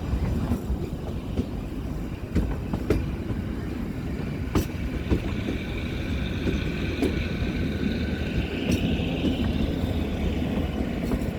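Kalka–Shimla narrow-gauge toy train running, a steady rumble with scattered clicks of the wheels over the rail joints. From a few seconds in, a faint high squeal of the wheels is heard as well.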